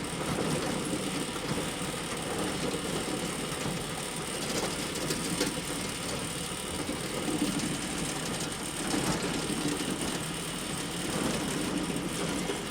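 Glitch sound effect: a steady, dense crackle of electronic interference, with scattered clicks and a faint high whine.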